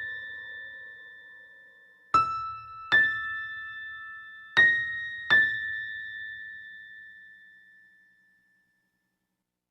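Soft music of struck chime-like notes: two pairs of notes, each ringing on and fading slowly.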